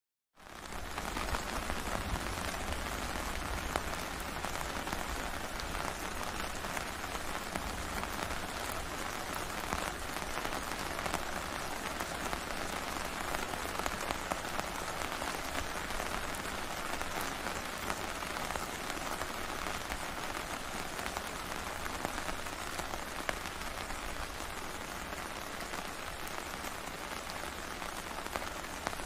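Steady rain falling on a tent, heard from inside: an even hiss of rain with scattered individual drops tapping on the fabric. It fades in at the very start.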